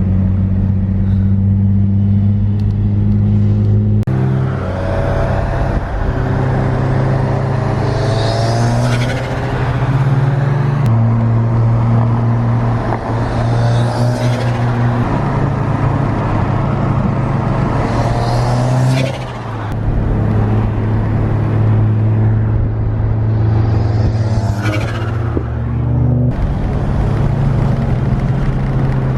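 Subaru WRX's turbocharged flat-four pulling hard under boost about four times, each pull rising to a spooling whine that ends in the blow-off and turbo flutter of an HKS SQV4 valve, set up to recirculate, when the throttle closes.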